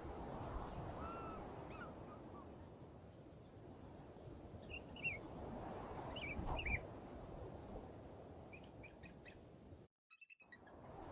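Wind buffeting the microphone, with scattered short chirps from small birds. Near the end the sound drops out completely for about half a second.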